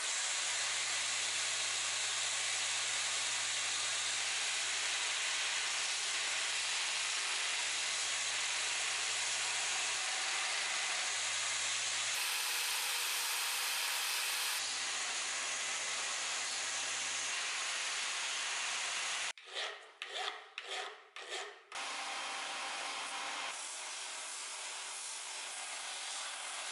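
Belt grinder running and grinding steel on its belt in a long steady rasp with a low motor hum underneath. About 19 s in it breaks into a few short strokes, then a bench belt-and-disc sander runs steadily with work held to its disc.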